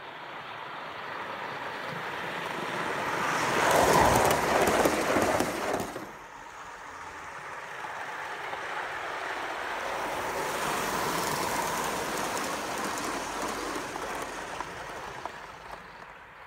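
Live-steam model of a C38 Pacific locomotive running on garden-railway track, its wheels and steam exhaust making a rushing, clattering running sound. The sound builds as it approaches and is loudest about four seconds in. It cuts off abruptly about six seconds in, then swells more softly and fades again.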